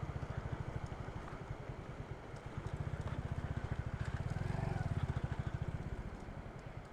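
Motorcycle engine running at low revs, its exhaust pulsing quickly and evenly, swelling a little about four to five seconds in.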